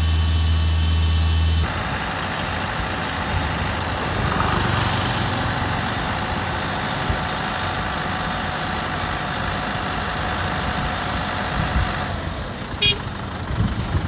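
A diesel portable air compressor's engine hums steadily and low. Then it abruptly gives way to a small tanker truck's engine idling. A single sharp click sounds near the end.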